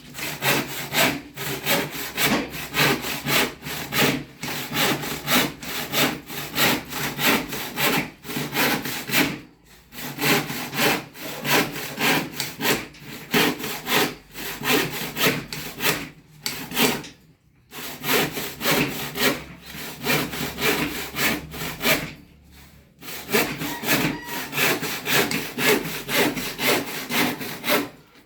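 Hand saw cutting wood in steady back-and-forth strokes, about two a second, with a few short pauses.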